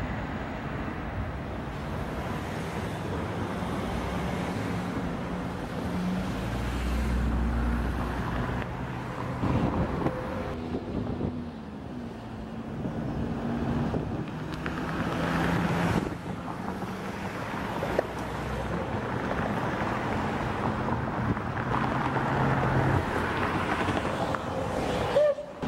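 Steam locomotive 213.902 blowing off and working steam while shunting, heard as a steady rush mixed with road traffic and wind on the microphone, with a low hum that shifts in pitch. The sound changes abruptly a few times.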